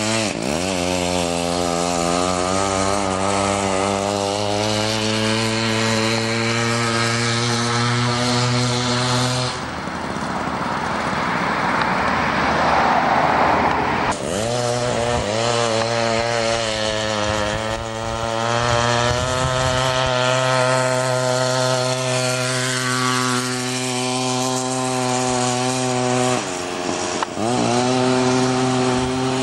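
Homelite 240 two-stroke chainsaw engine running on a friction-drive bicycle: it revs up at the start and holds a steady high pitch. About ten seconds in, the engine tone drops away under a rushing noise for a few seconds, then the engine revs back up, with a short dip in revs near the end.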